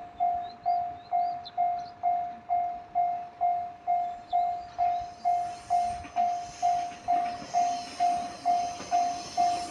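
Japanese level-crossing warning bell ringing in an even, repeating ding about twice a second. From about halfway through, the noise of the approaching train grows louder beneath it.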